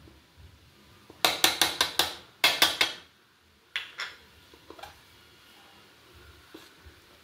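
Kitchen bowls clinking together: two quick runs of sharp taps, about a second in and again a second later, then a few single knocks.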